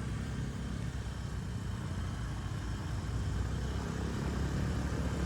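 Bus engine running at low revs, a steady low rumble that grows slightly louder in the second half.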